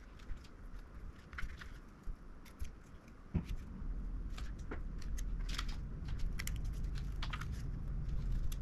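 Scattered small clicks and taps of graphics-card parts and tools being handled by hand. A louder knock comes about three and a half seconds in, after which a low steady rumble sets in under the clicks.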